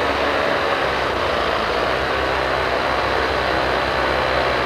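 An engine running steadily with a low hum and no change in pace.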